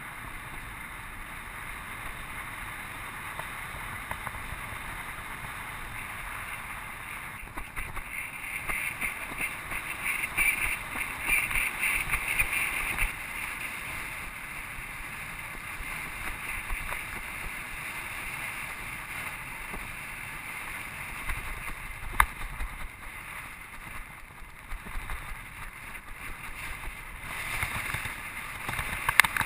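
Wind rushing over the microphone of a camera riding on a bicycle at training pace, with road noise underneath. The rush swells louder in gusts, and there is one sharp click about two-thirds of the way through.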